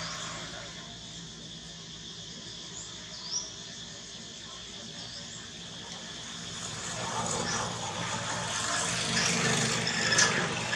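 Outdoor background of a steady insect drone with a few short rising bird chirps. A louder, noisy swell builds over the last few seconds, with a sharp knock just before the end.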